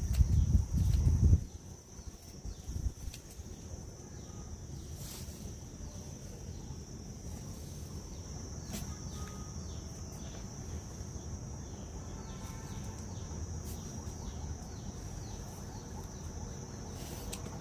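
Steady high-pitched insect drone throughout, with a few sharp clicks of scissors snipping plant stems. A low rumble fills the first second or so.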